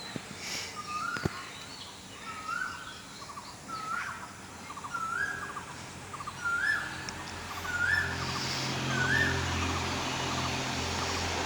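An oriole calling over and over, about eight short whistled notes, one every second or so, each sliding up and then holding. A low steady hum comes in about halfway through.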